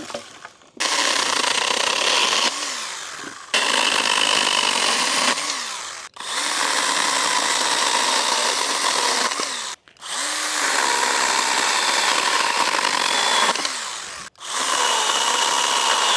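Stihl GTA 26 battery-powered mini chainsaw running and cutting through branches in several long bursts, the motor stopping briefly and spinning back up about four times.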